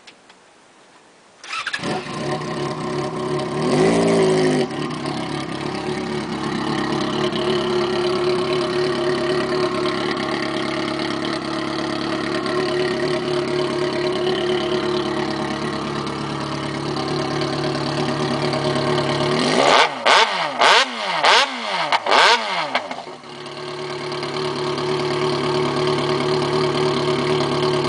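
Yamaha XJ6 motorcycle's inline-four engine starting about a second and a half in, with a short rev just after it catches, then idling steadily. About twenty seconds in it is revved four times in quick succession before dropping back to a steady idle.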